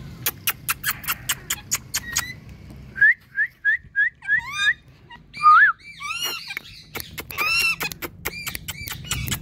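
Indian ringneck parrot calling: first a quick run of sharp clicking chirps, about five a second, then from about three seconds in a string of short rising whistles, followed by louder, varied whistled calls.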